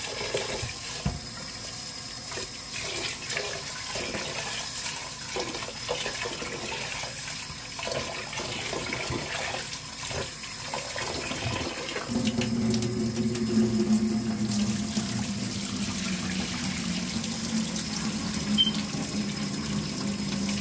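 Kitchen tap running into a metal pot of rice in a stainless steel sink while a hand swishes and rubs the grains in the water, washing them, with short knocks and rustles in the first half. About twelve seconds in, a steady low hum joins the running water.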